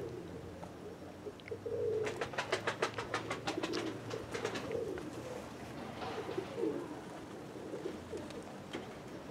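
Domestic pigeons cooing over and over in low, wavering coos. About two seconds in there is a quick run of sharp clicks lasting a second or two.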